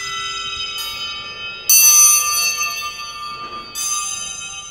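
Struck metal percussion ringing: bright, bell-like strikes with many high overtones that ring on and overlap, three new strikes coming about a second in, near two seconds in (the loudest) and near the end.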